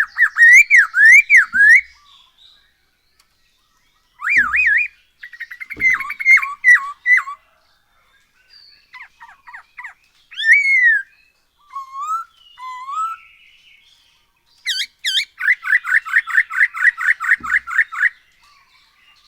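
Laughingthrush (poksay hongkong) singing loud whistled phrases with short pauses between them. It opens with wavering up-and-down whistles, moves through varied phrases, and near the end gives a fast run of repeated notes lasting about three seconds.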